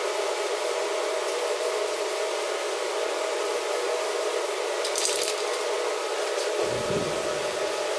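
Shop fan running steadily with an even whoosh and a faint hum. A short hiss comes about five seconds in.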